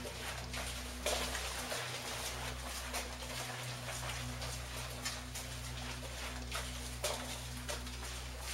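A steady low hum with a few constant pitches, with scattered soft knocks and clicks every second or two. The strongest knock comes about a second in.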